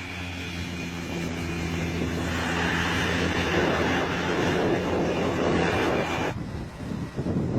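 Engine of an agricultural lime-spreading plane droning steadily and growing louder as it approaches. It cuts off abruptly about six seconds in, leaving gusty wind noise on the microphone.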